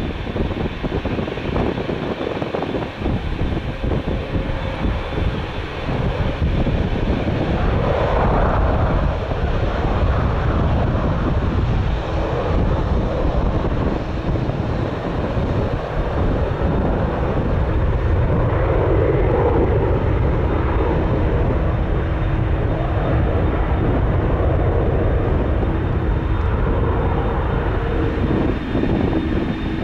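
Boeing 787-9 airliner's GEnx-1B turbofans at take-off power: a loud, steady jet roar with a deep rumble, growing a little louder about six seconds in. Gusty wind buffets the microphone throughout.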